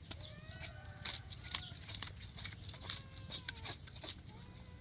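Quick, irregular scraping and clicking strokes of a knife working over a fish, typical of scaling it, with farm animals calling in the background.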